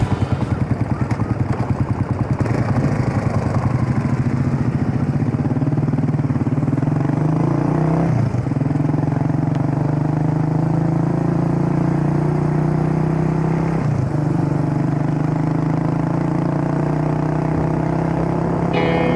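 Single-cylinder motorcycle engine running under way, with a pulsing note at first and two brief dips in the engine note, about eight and fourteen seconds in.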